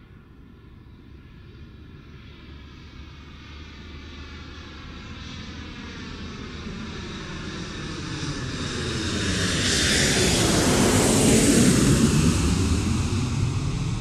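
Engine noise of something passing by, growing steadily louder for about ten seconds, loudest near the end and then starting to fade.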